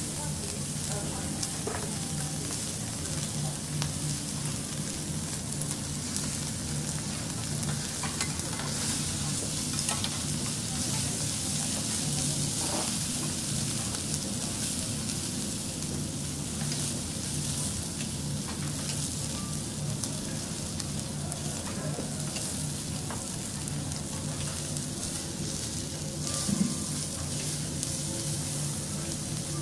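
Beef steak sizzling on a teppanyaki iron griddle: a steady frying crackle, with a steady low hum underneath. A single louder knock comes near the end.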